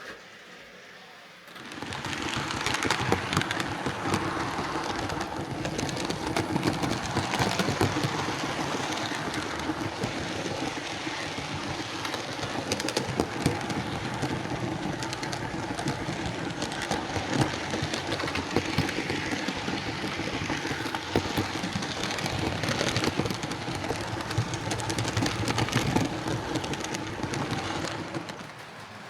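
Hornby OO gauge Class A4 Mallard model locomotive running on the track, its drive gear back on the axle spline: a steady motor hum with a dense rattle of wheel clicks. It starts about a second and a half in and dies away just before the end.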